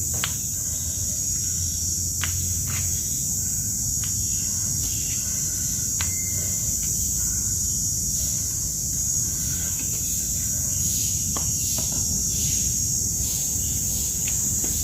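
Steady high-pitched background hiss over a low rumble, with a few faint clicks scattered through.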